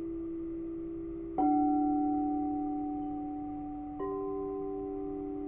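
Frosted quartz crystal singing bowls ringing with long, steady tones. Already-ringing bowls sustain while a bowl is struck with a mallet about a second and a half in and another, higher-pitched one about four seconds in, each new tone layering over the fading earlier ones.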